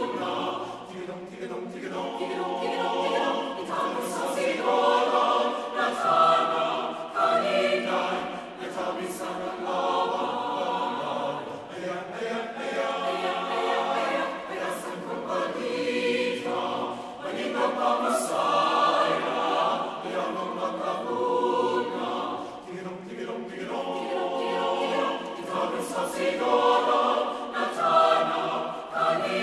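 Background music of a choir singing, in phrases that swell and fade every few seconds.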